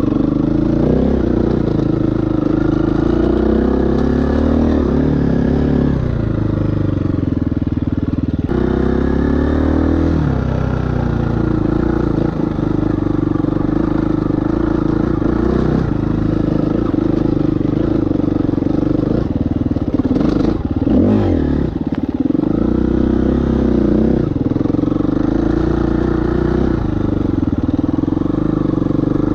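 2018 KTM 350 EXC-F's single-cylinder four-stroke engine under way off-road, its pitch repeatedly rising and falling as the throttle is opened and rolled off, with a quick rev and drop about two-thirds of the way through.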